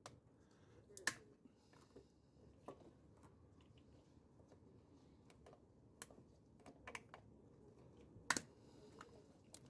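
Light, irregular clicks and taps of hand tools and small parts being handled during engine repair work, about ten in all, the sharpest about a second in and about eight seconds in, over a near-silent background.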